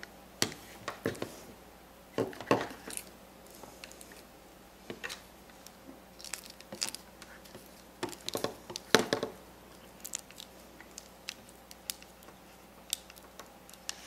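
Irregular small clicks and rustles of insulated wires being handled and a plastic wire nut being twisted onto a wire splice by hand.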